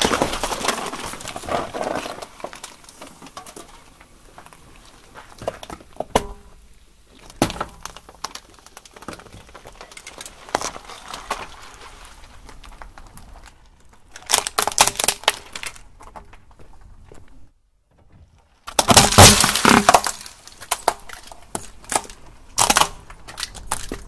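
A car tyre crushing a watermelon stuck with soda cans: a sharp crack at the start, then a few seconds of crunching and squashing. Later, several bursts of sharp cracking and breaking as plastic lighters shatter under the tyre, the loudest about two-thirds of the way through.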